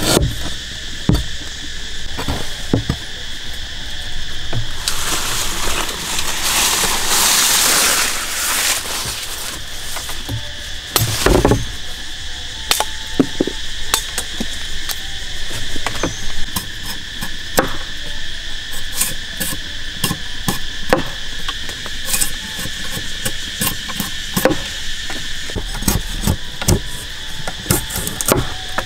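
Steady high-pitched insect drone, with scattered sharp knocks and cuts of a knife and cleaver working on a wooden board and a green stalk. A rush of noise rises from about five seconds in and fades by nine.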